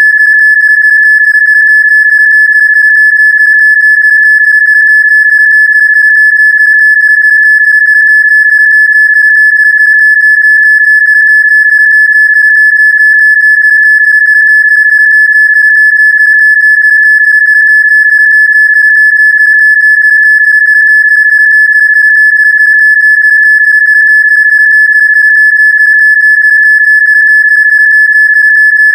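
A single steady, high-pitched electronic tone played as a Rife frequency, held at one pitch without any change.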